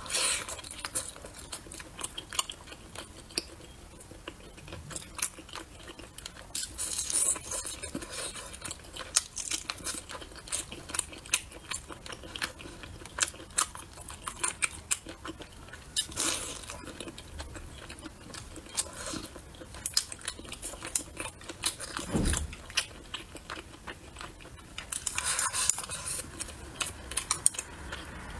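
A person eating close to the microphone, chewing and biting into meat, with many small clicks running throughout. There is one soft low bump about two-thirds of the way in.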